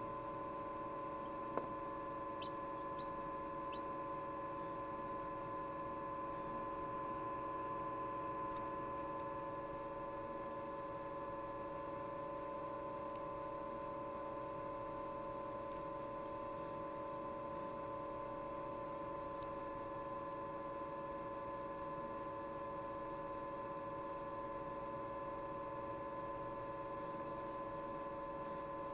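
Steady hum of a running egg incubator, several fixed tones held evenly. A single click comes about one and a half seconds in, and three faint, very short high cheeps follow from about two to four seconds in, from the chick pipping its way out of the egg.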